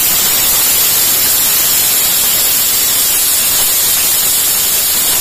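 Stovetop aluminium pressure cooker giving its first whistle on high flame: steam jets out past the weight valve as a loud, steady hiss, the sign that the cooker has come up to full pressure.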